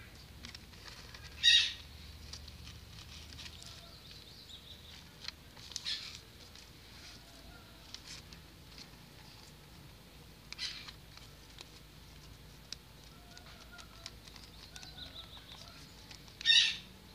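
A sheet of white paper being folded and creased by hand into a paper popper, with two short, loud rustles, one about a second and a half in and one near the end, and a few softer ones between.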